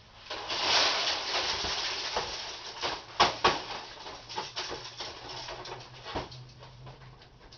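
Broken glass and plastic fragments from a scanner scraped together and rattling as they are gathered up, with a long sliding rattle at first and then scattered sharp clinks and knocks.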